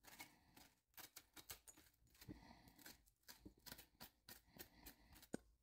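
Faint, irregular scraping of a metal spoon against the inside of a halved acorn squash, scooping out the seeds and stringy pulp, with one sharper tick near the end.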